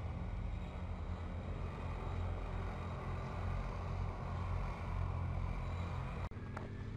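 Quad bikes (ATVs) running in the distance: a steady low engine rumble. The sound cuts off abruptly about six seconds in, and a different engine sound takes over.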